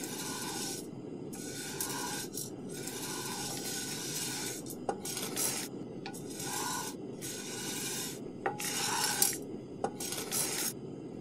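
A wooden spatula scraping and stirring in a non-stick frying pan, like stir-frying: about nine short scraping strokes with brief pauses between them. A few sharp clicks fall between the strokes, and a faint steady hum runs underneath.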